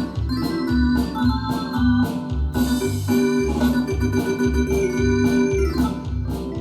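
Yamaha DX7 FM synthesizer playing an organ-like patch: held chords over a moving bass line with a steady beat, and a cymbal-like crash about two and a half seconds in.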